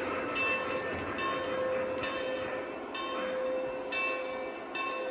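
O gauge model trains running on a layout: a steady rumble of wheels and motors on the track under an electronic locomotive sound effect. The sound effect has a steady drone and a higher tone that repeats a little more than once a second.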